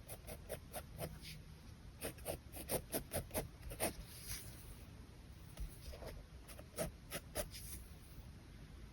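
Pen scratching on paper in quick short strokes, coming in two runs with a pause between.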